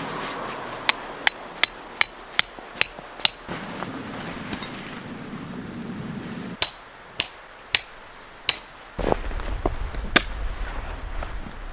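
Repeated sharp knocks with a metallic ring, like hammer blows: seven quick strikes about two and a half a second, then a few slower, spaced-out ones. A low rumble joins in near the end.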